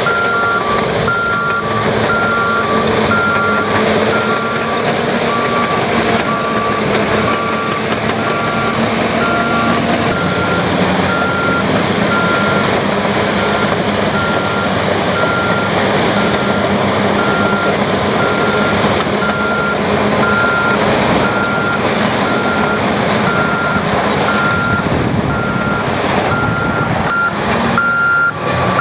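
Backup alarms on heavy construction machines reversing, beeping steadily over the noise of their running diesel engines. Two alarms at different pitches sound together, and the lower one stops about a third of the way in.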